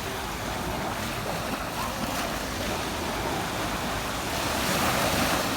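Sea surf washing onto the beach, a steady rush of waves that swells louder near the end, with some wind on the microphone.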